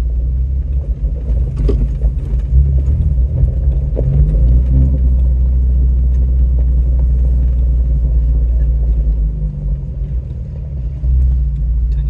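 Off-road vehicle's engine and drivetrain rumbling from inside the cabin while driving a rough dirt road, with a few sharp knocks and rattles.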